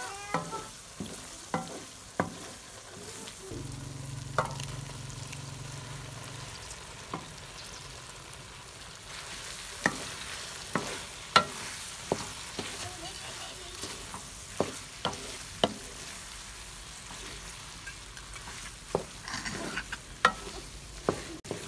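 Masala and cut okra frying and sizzling in an aluminium pan, stirred with a wooden spatula that knocks sharply against the pan every second or two. About four seconds in, a low hum sounds for about three seconds.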